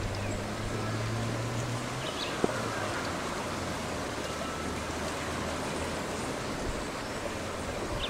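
Steady outdoor background hiss with the low hum of a distant engine, strongest in the first two seconds and then fading. A brief high bird chirp comes about two seconds in, and a single faint click follows soon after.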